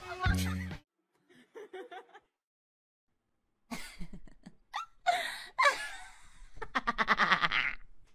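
A person laughing in short bursts, ending in a quick run of giggles.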